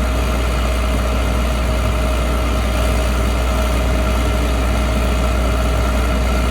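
John Deere 9760 STS combine's diesel engine running steadily: a continuous low hum with a constant whine above it.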